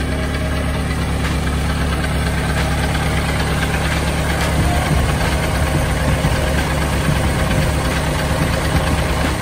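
Ford Model T's four-cylinder side-valve engine running steadily at idle, heard close up.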